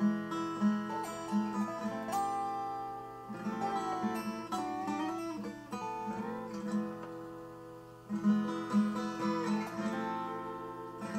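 Background music led by acoustic guitar, with notes changing steadily over a regular pulse.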